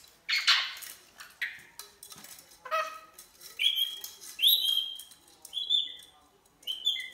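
Rainbow lorikeet giving a harsh screech, then a run of short, high squeaky chirps, while it plays with a plastic ball toy. Light clicks and knocks sound between the calls, from the toy on a tile floor.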